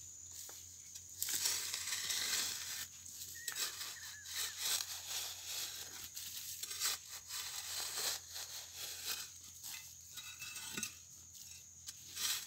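Long-handled metal digging bar chopping and scraping into dry soil around a cassava root, with irregular crunching strokes. The strokes are loudest about one to three seconds in.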